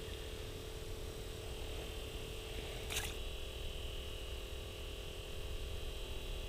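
Low steady background noise with a faint hum and one short sharp click about three seconds in.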